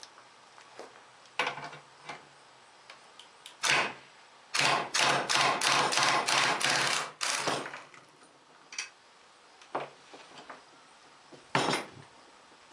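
Hand tools and mower parts being handled in the workshop: scattered knocks and clicks, with a run of about eight quick rasping strokes, roughly three a second, in the middle.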